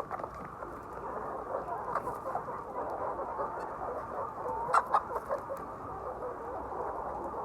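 A flock of egg-laying hens clucking and chattering continuously, many overlapping short calls. Two sharp knocks sound about two-thirds of the way through.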